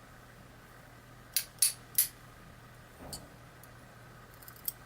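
Small metal clicks and clinks from tweezers and tiny lock parts (springs and pins) being handled while a pin-tumbler lock is taken apart. Three sharp clicks come in quick succession about a second and a half in, then one softer click and a few faint ticks near the end.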